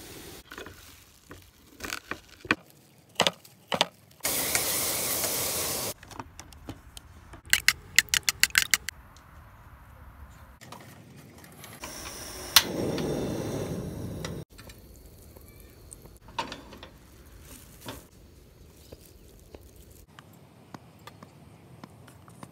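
Clicks, knocks and clatter of metal sandwich makers and utensils on a camp stove, including a quick run of about eight clicks. A hiss lasts nearly two seconds about four seconds in, and a duller rushing noise lasts a couple of seconds about twelve seconds in.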